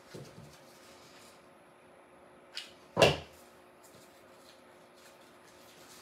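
Quiet handling of craft stems on a work table, with faint scattered ticks; a light click about two and a half seconds in, then one sharp knock on the tabletop.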